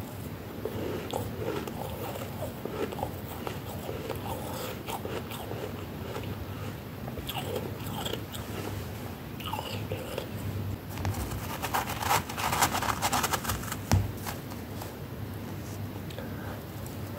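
Close-miked biting and chewing of flaky freezer frost: crisp, irregular crunches, with a denser, louder run of crackling about two-thirds of the way in that ends in a short low thump.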